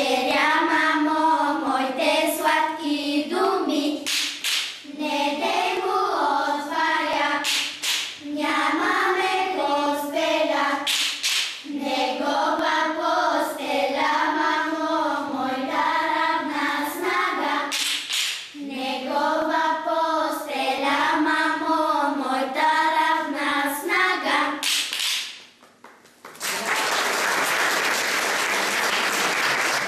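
A group of young girls singing a folk song together, clacking wooden spoons in time with regular clicks. The song ends about 25 seconds in, and applause follows.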